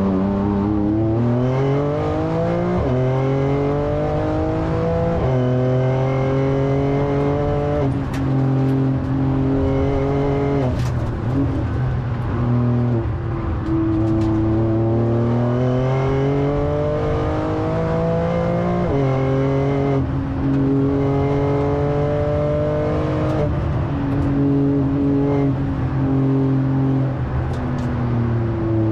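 A Porsche 911 Turbo S's twin-turbo flat-six, heard from inside the cabin under hard acceleration. The engine note climbs steadily, then drops sharply at each quick upshift. Twice midway it eases off and picks up again, as the car slows for corners.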